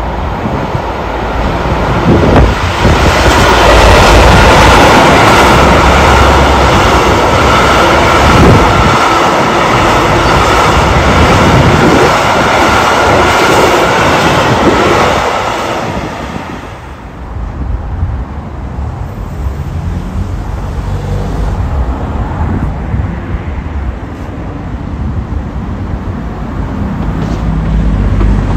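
A Class 66 diesel freight locomotive passes close by, its two-stroke V12 engine running, followed by a long rake of hopper wagons rolling past with a steady high ringing note over the wheel noise. About halfway through, the passing sound drops away to a lower rumble.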